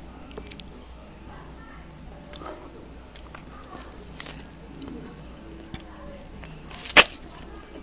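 Close-up eating sounds of rice noodles: soft chewing and small mouth clicks, with a short slurp about four seconds in. A louder slurp comes near the end as strands of noodle are sucked in at the lips.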